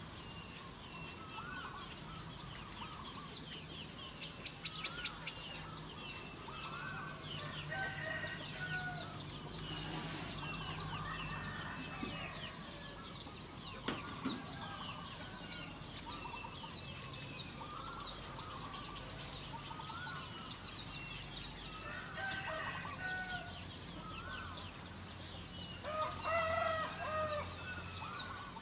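Small birds chirping constantly, with domestic chickens calling and clucking a few times; the loudest chicken call comes near the end.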